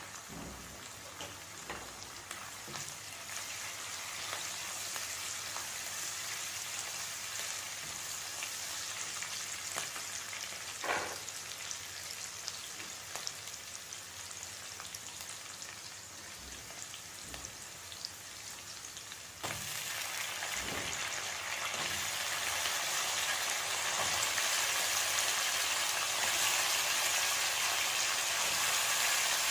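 Food frying in hot oil in a pan: a steady sizzle with scattered small crackles and a short knock about 11 seconds in. About two-thirds of the way through, the sizzle suddenly jumps louder and brighter and stays that way.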